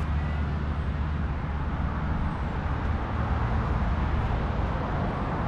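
Steady low rumble of a vehicle, with an even hiss over it.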